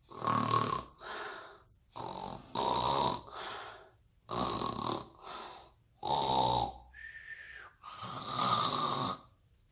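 Snoring in a steady rhythm: about five loud snores, with softer breaths between them, one of which is a short high whistle.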